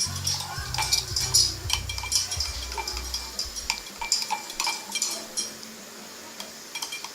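A spoon or pestle clinking and knocking against a drinking glass at an irregular pace, the knocks thinning out near the end.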